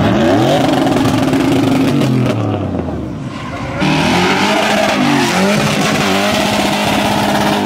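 Drifting pickup truck's engine revving up and down with its rear tyres spinning in a smoky burnout. About four seconds in the sound cuts abruptly to another car's engine, which settles into a steady high-rev drone.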